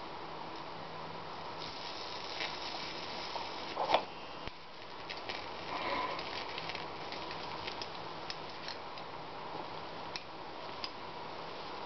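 High-voltage arc from a TV flyback transformer crackling and sizzling against an incandescent bulb as it melts the glass, with scattered clicks over a steady hum. A sharp crack about four seconds in is the loudest moment.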